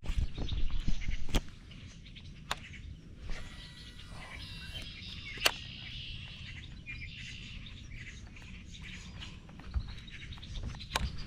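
Birds chirping and calling over a low outdoor hiss. A few sharp clicks come through, and heavier knocking in the first second or so.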